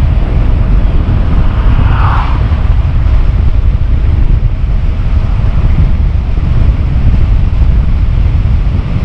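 Strong wind buffeting the handlebar-mounted action camera's microphone as an electric tandem bicycle rides at about 35 mph, a loud, steady rumble. A brief higher-pitched sound rises over it about two seconds in.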